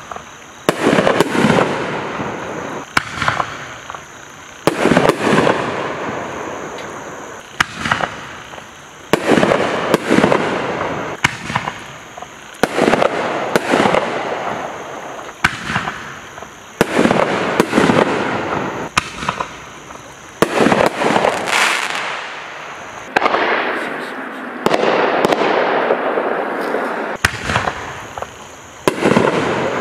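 Magnus Unsung Heroes consumer artillery shells fired one after another, loud sharp bangs roughly every two seconds, each trailing off in an echo.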